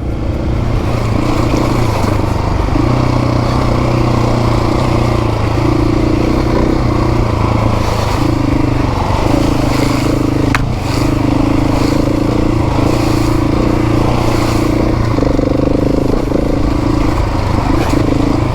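Adventure motorcycle engine running along a wet trail, the throttle opening and closing, with wind rushing over the microphone and a sharp click about ten seconds in.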